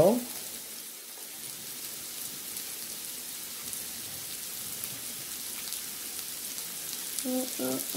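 Sausages, scallops and shrimp sizzling on a hot ridged grill plate: a steady crackling hiss.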